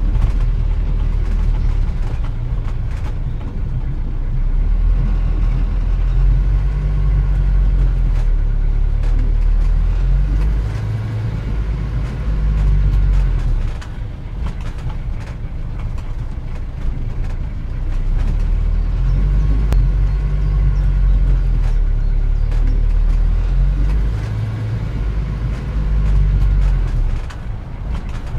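Car engine running as it drives along, a deep steady rumble whose note rises and falls twice.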